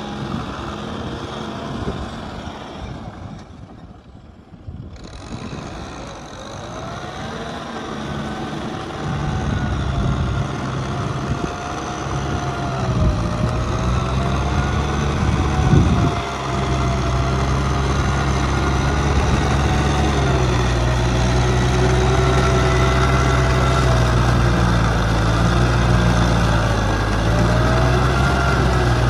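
Kubota M6040 tractor's diesel engine running steadily while it works a rear rotary tiller, getting louder about nine seconds in, with a fainter whine above it that wavers in pitch.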